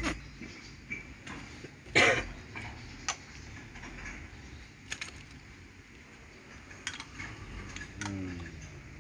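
Scattered sharp clicks and clinks of a small metal brake part being handled and turned over in the hands, with a louder burst about two seconds in.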